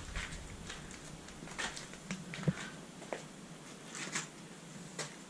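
Faint scattered clicks and rustles of a person moving about on a debris-strewn shed floor, with a sharper click about halfway through.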